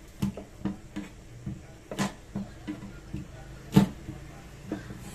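Garlic cloves being crushed under the flat of a chef's knife on a wooden chopping board: a string of uneven sharp knocks as the palm presses and strikes the blade, the loudest a little under four seconds in.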